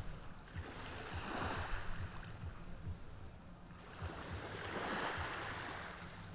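Ocean waves washing onto the shore, swelling twice: once about a second in and again, louder, near the end.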